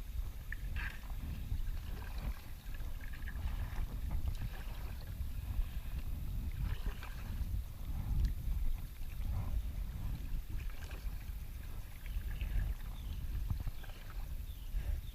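Wind and water noise around a fishing boat on a lake: a steady, uneven low rumble with faint scattered short higher sounds, a few of them rising, near the end.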